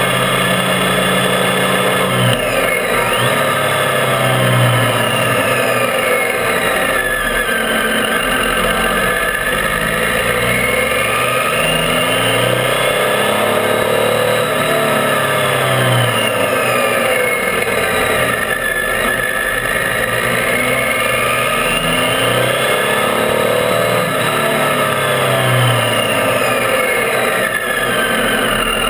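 Triumph Tiger 800's three-cylinder engine under way on the motorcycle, its pitch climbing as it accelerates and falling as it slows, several times over.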